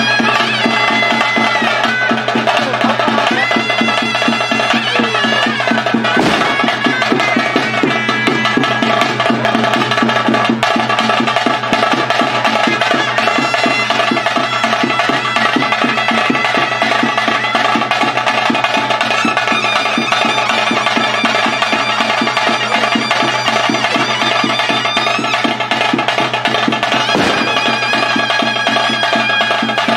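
Live ritual music: a reed pipe plays a winding melody over a steady drone, with fast, continuous drumming beneath it.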